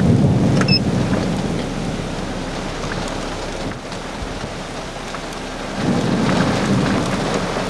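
Thunder rumbling twice over steady rain: one low roll right at the start fading after a second or so, a second from about six seconds in.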